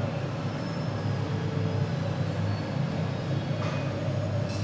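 Steady low hum over a faint hiss, with two faint ticks near the end.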